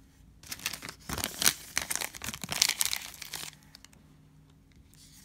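Empty foil trading-card pack wrappers crinkling and being crumpled by hand, a dense crackle starting about half a second in and stopping about three and a half seconds in.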